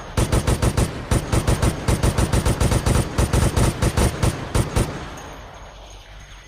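M60 machine gun firing in automatic bursts, about ten shots a second: a short burst, a brief pause, then a long burst of nearly four seconds. It stops about five seconds in, leaving a fading echo.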